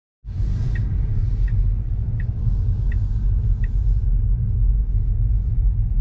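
Steady loud low rumble that starts abruptly, with five faint, regular ticks about three quarters of a second apart over the first four seconds.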